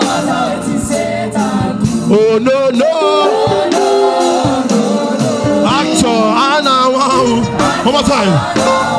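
Live gospel worship music: a congregation singing together over band accompaniment, voices wavering and swelling.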